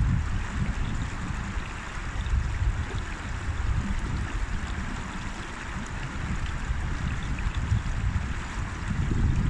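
A river flowing: a steady, even rush of water, with an uneven low rumble underneath.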